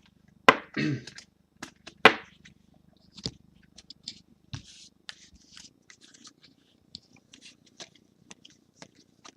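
Trading cards being handled and flipped through, with sharp clicks and rustles of card stock, loudest at about half a second and two seconds in, then lighter rustling.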